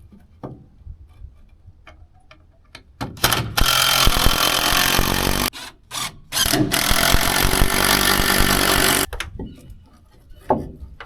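Power drill running in two sustained bursts, about two seconds and two and a half seconds long with a short pause between, into wood, with scattered knocks and handling clunks before and after.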